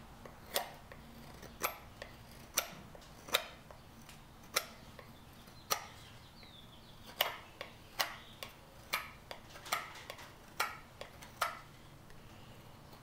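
Knife cutting shavings from an ash axe handle, each stroke a short sharp tick, thinning the end to fit the hatchet's eye. The ticks come about once a second at first and about twice a second in the second half.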